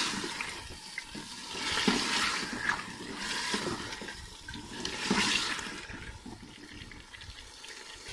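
Aloo gosht (potatoes and meat in masala) sizzling and bubbling in an aluminium pot as a wooden spoon stirs it, the hiss swelling with each stroke about four times. The liquid has cooked off and the dish is being fried dry (bhuna) before water is added.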